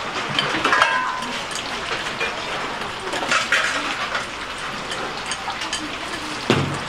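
Busy restaurant kitchen noise: a steady hiss of cooking with clinks of dishes and utensils, a brief ringing tone about a second in, and a heavy thump near the end.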